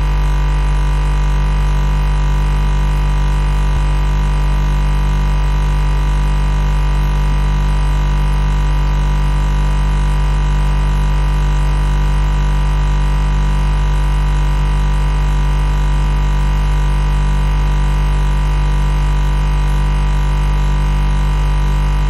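Refrigerator compressor humming steadily: an unchanging low hum with a fainter, higher whine above it.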